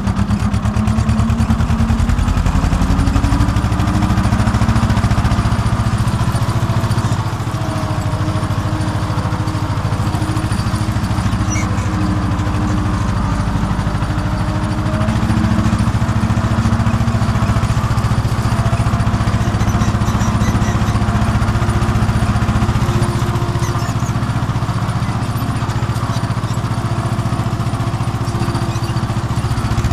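Farm tractor's diesel engine running steadily under load while pulling a tillage implement across a field, heard from the driver's seat close to the vertical exhaust.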